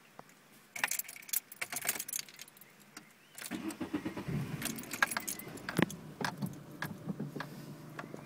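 Car keys jangle and click, likely at the ignition. About three and a half seconds in, the 1996 VW Golf Mk3's 1.4-litre four-cylinder engine starts and settles into a low, steady idle, with occasional clicks over it.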